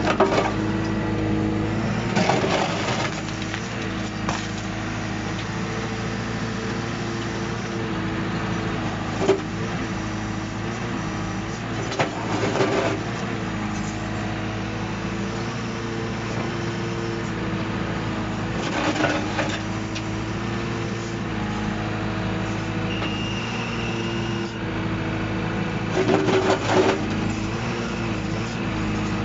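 Diesel engine of a 14-ton excavator running steadily, its pitch dipping and recovering as the hydraulics take load, with a few short bursts of rapid hammering from the OSA RV16 hydraulic breaker, each about a second long.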